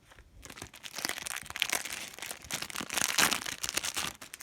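Foil trading-card packet being torn open and crinkled by hand: a dense crackling that starts just after the beginning and stops shortly before the end.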